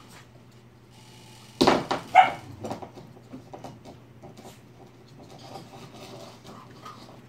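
A dog barks twice in quick succession about one and a half seconds in, amid small scattered clicks and scuffles, over a low steady hum.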